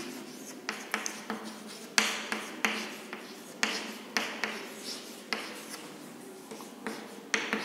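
Chalk writing on a chalkboard: an irregular run of short taps, a few a second, with light scratching between them as letters are written.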